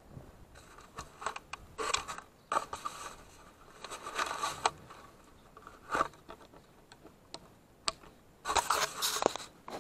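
Footsteps crunching on cold, trampled snow in irregular bursts, mixed with the scrape and rustle of the camera being carried.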